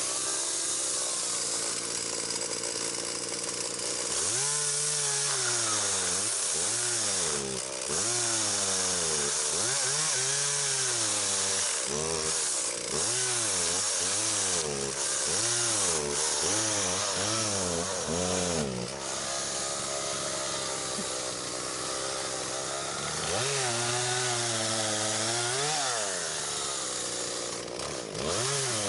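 Chainsaw cutting branches, its engine pitch rising and falling again and again as it is throttled up and bogs into the wood, with steadier running between cuts.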